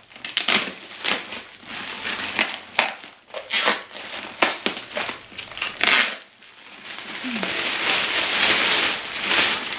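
Clear plastic bag crinkling as it is picked at and pulled open by hand: irregular sharp crackles at first, turning into a steadier, louder rustle in the last few seconds.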